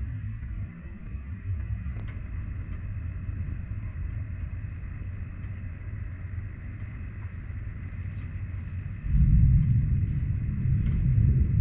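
Thunder rumbling low and continuously, swelling suddenly into a louder rumble about nine seconds in.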